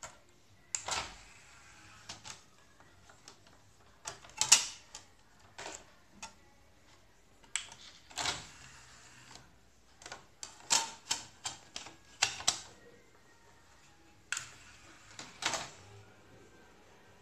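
Plastic clicks and clacks from pressing the front-panel buttons of a Denon CDR-W1500 CD recorder and working its disc tray, at irregular intervals, with a quick run of clicks about ten to thirteen seconds in.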